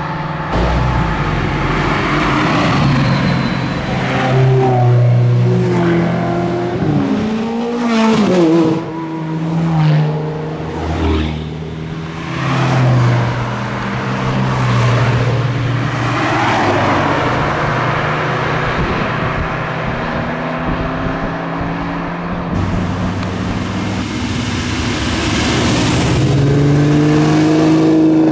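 Several sports-car engines, mostly Ferraris, revving and accelerating past one after another, the pitch climbing and dropping repeatedly through gear changes. Near the end the V12 of a classic Ferrari 330 GTO grows louder and rises in pitch as it drives up.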